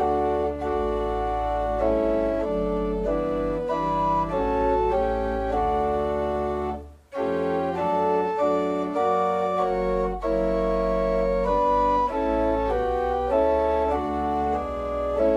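Organ playing a hymn tune in held chords over a steady bass, the chords changing every half second or so, with a short break between phrases about seven seconds in.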